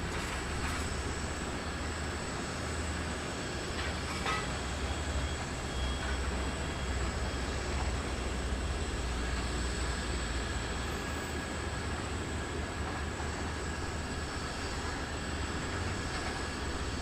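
Jet aircraft engines running at the airport: a steady low rumble with a thin, steady high whine over it.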